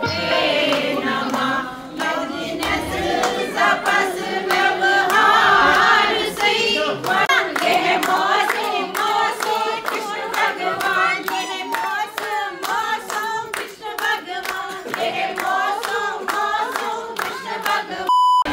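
A group of guests singing a traditional wedding song together, with steady hand-clapping. Near the end comes a short, loud, steady beep.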